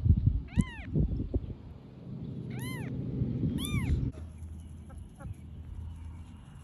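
Newborn kitten mewing three times, thin high cries that rise and fall, over close rustling of the blanket and the hand holding it. About four seconds in, the sound cuts to a quieter steady background with a faint high hiss.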